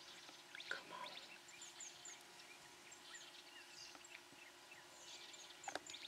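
Faint bird chirps, short high falling notes in small groups, over a quiet background, with a couple of soft clicks.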